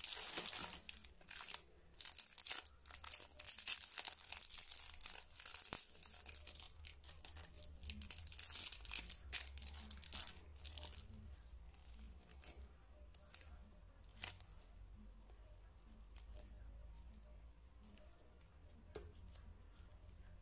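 Crinkling and tearing of a Celebrations mini chocolate's metallised twist-wrapper as it is pulled open by hand. The crackling is dense for the first ten seconds or so, then thins to scattered light crackles and clicks that fade toward the end.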